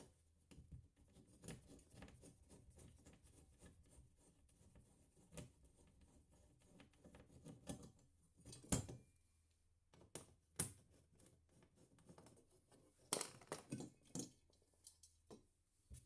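Faint, sparse clicks and scrapes of a hand screwdriver turning out the screws of a metal radiator wall bracket, with a few louder sharp knocks in the second half as the bracket is handled and taken off.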